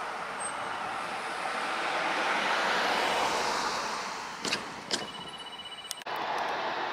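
A road vehicle passing by, its tyre and road noise swelling and then fading, followed by a few sharp clicks.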